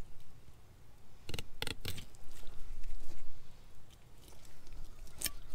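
Fillet knife cutting into a bass, with three sharp crunching clicks about a second and a half in and another near the end as the blade bites through scales and bone.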